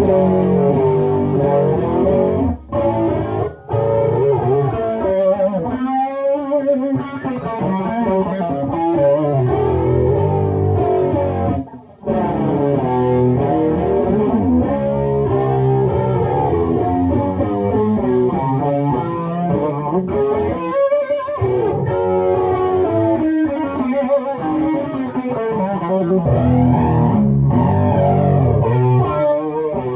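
Electric guitar played through an Ibanez FL9 flanger pedal into a Laney AOR 50 amp and Orange 4x12 cabinet with Celestion Vintage 30 speakers, the flanger's sweep running through the notes. The playing breaks off briefly a few times, about two and a half, three and a half, and twelve seconds in.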